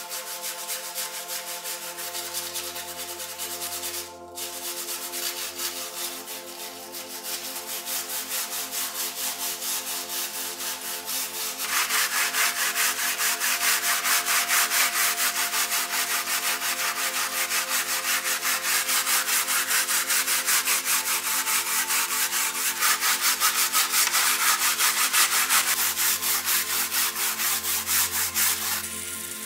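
Steel wire brush scrubbing rust off a wet perforated steel radio grille in rapid back-and-forth strokes, growing louder and harsher partway through.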